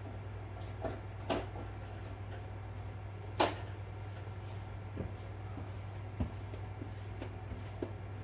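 Scattered clicks and knocks of kitchen things being handled, about half a dozen, the loudest about three and a half seconds in, over a steady low hum.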